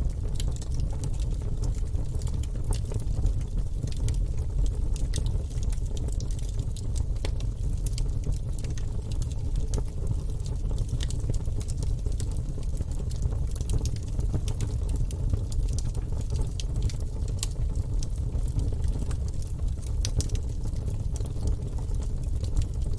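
Wood fire burning in a fireplace: a steady low rumble of flames with frequent small, sharp crackles and pops from the logs.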